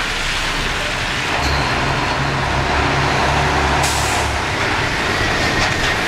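Fire truck's engine running with a heavy low rumble as the truck moves, and a brief burst of hiss about four seconds in.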